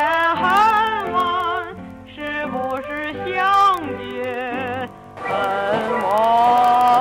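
Background music with a singing voice, the melody wavering with vibrato. About five seconds in it switches abruptly to a different passage with a long held note over a hissy background.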